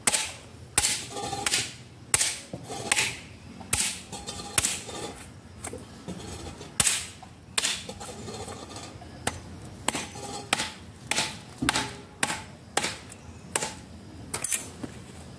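Repeated blows of a hand tool chipping thick bark off a wooden tree trunk, about twenty sharp strikes at a fairly steady pace, some followed by a short scrape.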